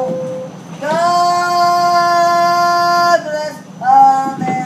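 A woman singing loudly, holding one long high note for about two seconds, then a shorter note after a brief break.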